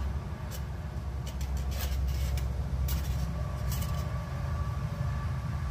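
Packing material in a cardboard shipping box rustling and crinkling as it is handled and pulled out, in several short bursts over a steady low hum.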